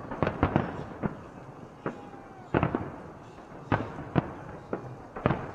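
Festive fireworks salute: about ten sharp bangs of bursting shells at irregular intervals, each trailing off in a rolling echo.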